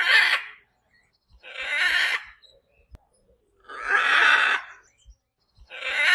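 A parrot giving harsh, raspy squawks: four calls in a row, each under a second long, about two seconds apart.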